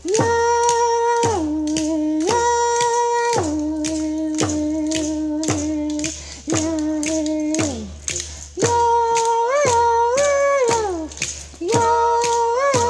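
Traditional Ohlone dance song: a voice chanting long held notes that step between a higher and a lower pitch, each ending in a downward slide, with short pauses between phrases. Under it runs a steady clacking beat.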